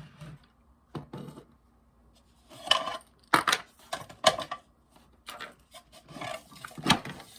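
Small hard objects being picked up and set down on a desk, knocking and clattering in a string of separate sharp clacks with short quiet gaps between.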